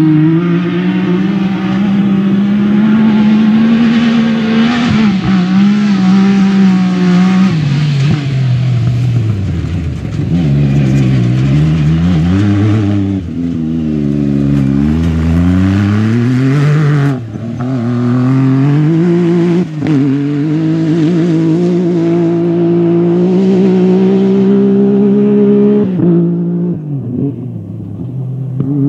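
Rally buggy's engine running hard, its pitch climbing and falling again and again as it accelerates and lifts off. The sound breaks off and jumps abruptly a few times.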